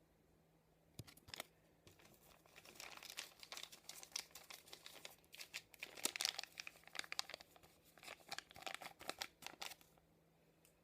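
Packaging crinkling and tearing as it is opened by hand: a couple of sharp crackles about a second in, then about eight seconds of dense crinkling that stops shortly before the end.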